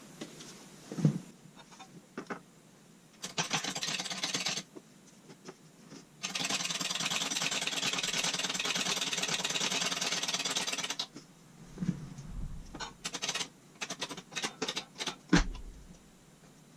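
A shop machine or power tool runs briefly, then again for about five seconds with a steady rapid rasp, followed by scattered knocks and clatter of parts being handled.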